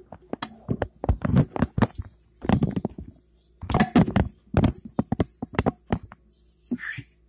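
Handling noise from a camera being picked up and repositioned: irregular clusters of knocks, bumps and rubbing against the device and the counter, with short quiet gaps between them.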